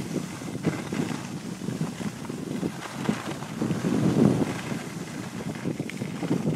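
Wind rushing and buffeting over the microphone during a downhill ski run, mixed with the scrape of skis on snow; the rush swells about four seconds in.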